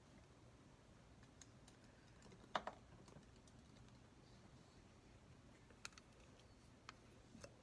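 Near silence: low room hum with a few faint, sparse clicks and taps, the sharpest a quick double click about two and a half seconds in.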